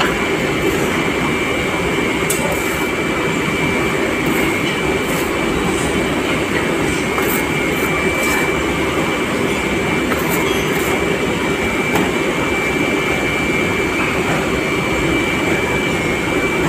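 Loud, steady machinery noise on a foundry floor, an unbroken drone with a constant high whine running through it.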